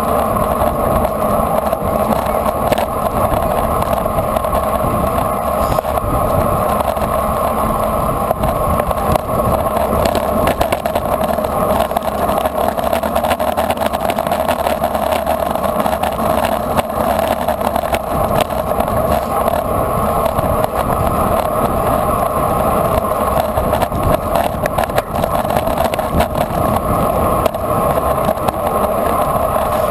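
Steady wind rush and road noise on an action camera mounted low on a road racing bicycle at speed, with a constant hum underneath.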